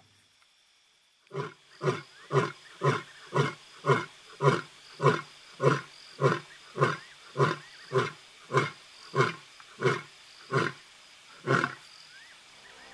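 Male African lion roaring: after a moment of quiet, a run of about eighteen short roaring calls at roughly two a second, spacing out near the end. He is roaring to locate his brothers and the rest of the pride.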